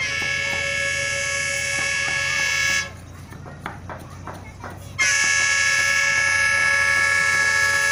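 Approaching diesel locomotive sounding its air horn in two long, steady blasts, the second starting about five seconds in, warning of the train's approach to an unguarded level crossing.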